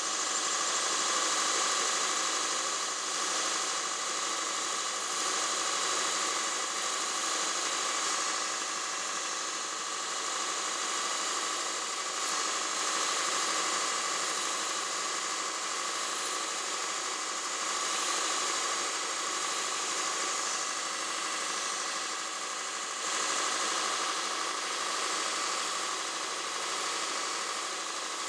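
Belt grinder running with a golf wedge head held against the abrasive belt, grinding metal from the sole in light repeated passes to shape a custom sole grind. A steady hum and grinding hiss that swells and eases a little as the clubhead is worked against the belt.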